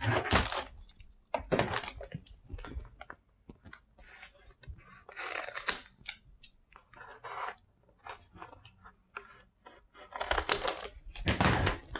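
Packaging being opened by hand: irregular rustling, scraping and tearing of a box and the paper inside. The loudest bursts come at the start and again about ten seconds in.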